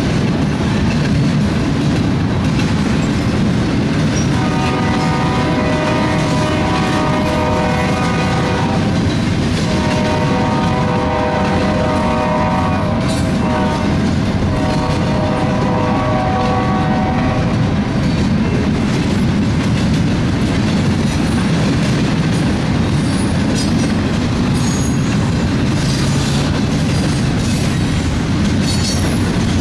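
BNSF double-stack intermodal train rolling past: steady rumble and clatter of steel wheels on the rails. From about four seconds in, a diesel locomotive's multi-chime air horn sounds three long blasts, ending after about eighteen seconds. Brief high wheel squeals come near the end.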